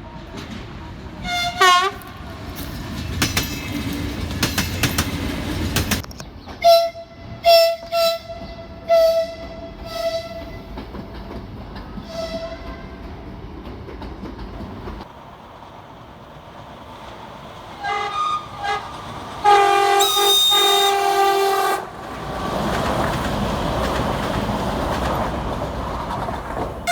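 Georgian Railways train horns in a string of separate recordings: a brief blast, then a run of about seven short toots, then a few short blasts and a long loud chord-like blast. Between the horns comes the rumble and wheel clatter of trains running past.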